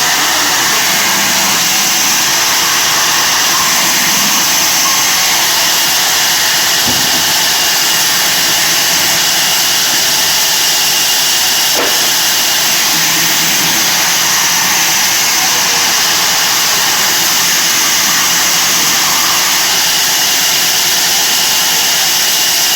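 Sawmill bandsaw machine running with a steady, loud, hissing mechanical noise.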